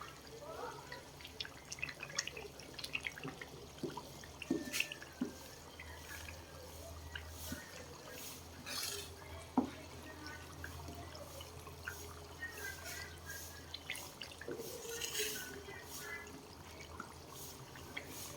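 Chili garlic oil simmering in a pan: faint sizzling with scattered small pops and crackles, over a low steady hum.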